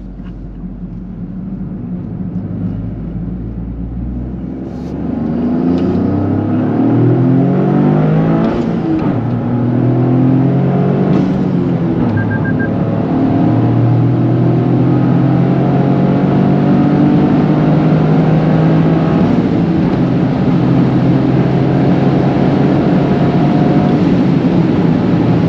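Toyota GR Corolla's turbocharged three-cylinder engine, breathing through a K&N intake, accelerating: after a few seconds of low running the engine note jumps up and rises in several sweeps as the car pulls through the gears, then settles into a steady drone.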